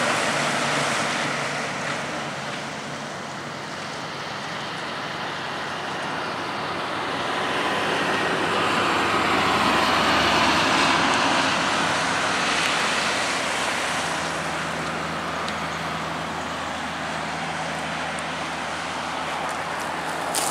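Highway traffic passing: tyre and engine noise swells as a four-wheel drive goes by close about ten seconds in, then eases to a steady rumble as heavy-haulage road trains draw away.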